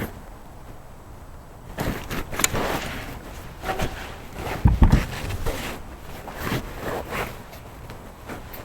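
Handling noise of tools and parts: scattered clicks, scrapes and knocks starting about two seconds in, with one heavy low thump about halfway through.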